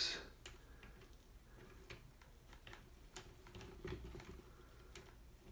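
A few faint, scattered clicks and taps of a flathead screwdriver working at the plastic rear hub of a radio-control truck, prying at a part that is stuck.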